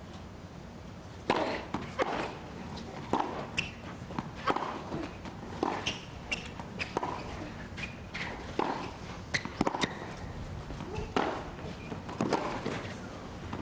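Tennis ball struck back and forth with rackets in a long rally, starting with the serve about a second in. The sharp hits and bounces come roughly once a second, the first the loudest.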